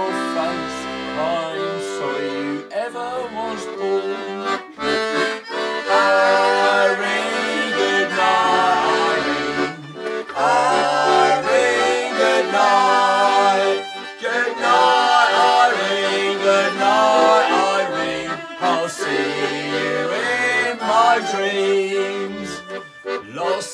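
Piano accordion and fiddle playing a folk waltz tune together as an instrumental introduction, the accordion's held chords under the fiddle's sliding melody line.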